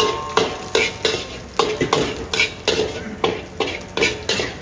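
Metal ladle scraping and knocking against a large metal wok in quick, uneven strokes, about two to three a second, each stroke making the wok ring briefly. Under it, a little oil and chopped ingredients sizzle in the hot wok.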